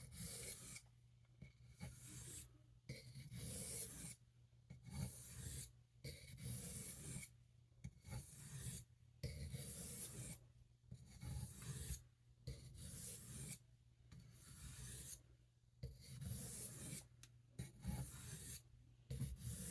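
D2 steel pocketknife blade stroked over the fine side of an Arkansas whetstone: faint, repeated scraping strokes, about one a second, as the edge is polished.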